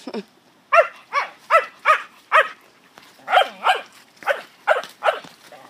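A dog barking in quick, sharp, high barks while it plays with a big ball: about five in a row, a short pause, then about five more.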